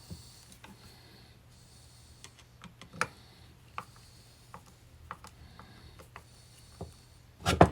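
Light scattered clicks and taps of small metal vise parts and tools being handled during reassembly, with a sharper tap about three seconds in and a louder knock near the end, over a low steady hum.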